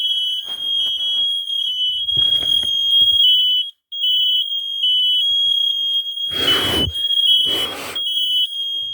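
Several smoke alarms sounding at once: piercing beeps near 3 kHz, one tone steady and a slightly lower one pulsing against it in overlapping patterns. The alarms are set off by humidifier mist in the box. There are three bursts of noise about two, six and a half, and seven and a half seconds in, and the sound cuts out briefly once.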